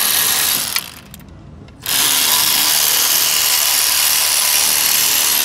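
Cordless power tool with a socket spinning on the water pump bolts. It runs for under a second, stops for about a second, then starts again and runs steadily.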